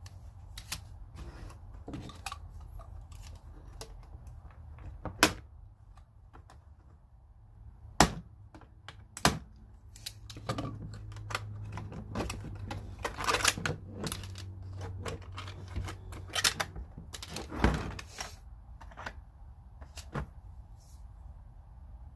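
Irregular clicks, taps and knocks from a digital torque wrench and its plastic packaging being handled and unwrapped, with a few sharper knocks standing out about 5, 8, 9 and 17 seconds in.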